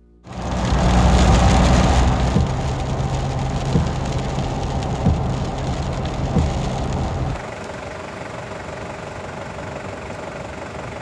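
Rain hitting a car windshield, heard inside the cabin over a steady low engine and road hum, with a soft thump about every second and a half. About seven seconds in it drops to a quieter, even rush of road and wind noise.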